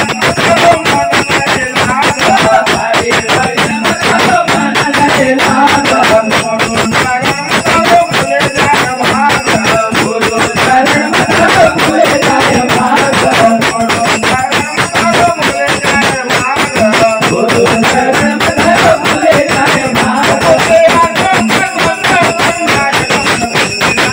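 Nimadi garbi folk devotional music: fast, dense mridang drumming with jingling percussion over a wavering melody line.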